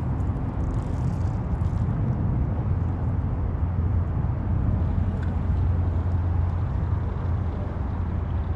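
Steady low rumble of distant motor traffic, an even drone of vehicles with no breaks.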